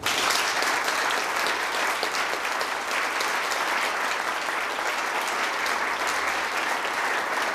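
Audience applauding. The clapping breaks out all at once and holds steady.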